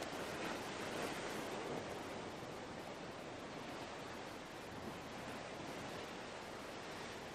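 Sea surf washing against shore rocks, a steady wash that swells a little in the first couple of seconds.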